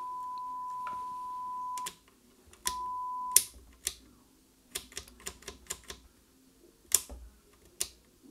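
A steady 1 kHz sine-wave test tone from a test speaker, played through a Grundig Satellit 6001's audio amplifier. It cuts out after about two seconds, comes back briefly about a second later, then drops out again. Clicks and knocks from handling the set run through it: an intermittent connection, which the restorer puts down to a dirty jack or selector switch at the back.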